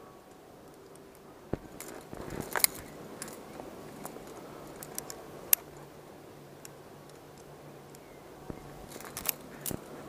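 Climbing carabiners and quickdraws clinking in scattered, sharp metallic clicks, the loudest about two and a half and five and a half seconds in, with another few near the end.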